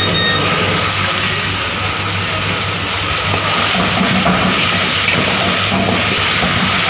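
Sliced onions and garlic paste sizzling steadily in hot oil in a wok as they are stirred with a spatula.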